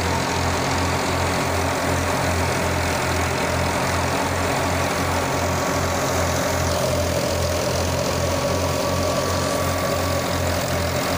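Tractor diesel engine running steadily under load, driving a wheat thresher through its PTO shaft, with an even, rapid low throb. The thresher's drum and blower add a steady rushing whir as chaff is blown out.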